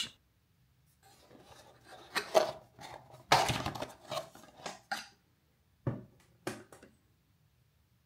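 A plastic smart wall switch being lifted out of a cardboard box by hand and set down on a table: scattered rustling, scraping and light clicks, busiest a little before the middle, then two short sharp knocks near the end.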